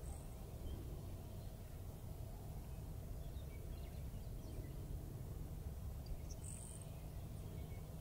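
Grasshopper sparrow singing its very high, insect-like song: a few faint ticks, then one short buzz about six seconds in, with a similar brief buzz right at the start. A low steady rumble runs underneath.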